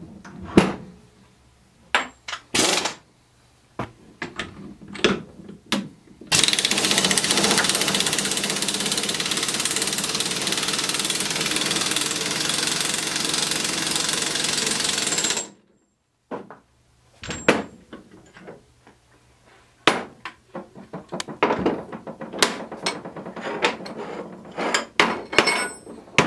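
Air impact wrench hammering steadily for about nine seconds, spinning the forcing screw of a bearing puller to draw a carrier bearing off a Ford 9-inch differential carrier. Clinks and knocks of steel tools and parts come before and after it.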